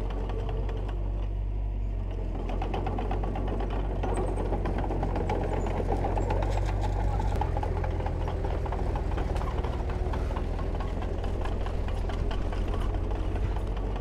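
Diesel engine of heavy earthmoving machinery running steadily, with a low hum and a rapid clatter throughout.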